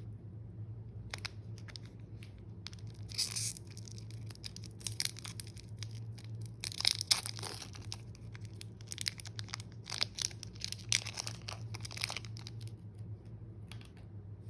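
Slime being mixed by hand, giving off irregular sticky crackles and pops, thickest from a few seconds in until near the end, over a faint steady low hum.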